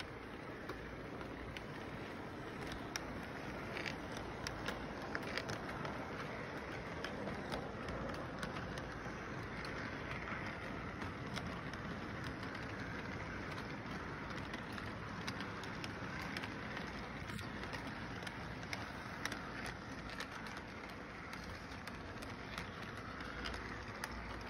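Model electric train running on its track: a steady rumble from the motor and wheels, with frequent light clicks.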